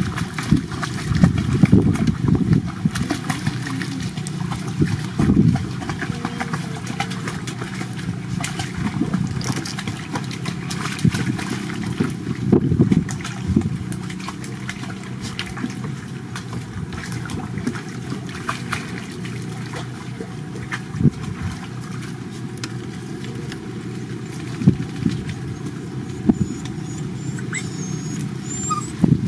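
A motor running steadily with a low hum, with irregular knocks over it.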